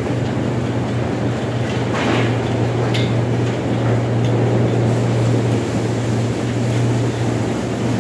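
Tunnel car wash equipment running: a steady low hum of motors under a rushing noise. A few short, sharper sounds about two and three seconds in.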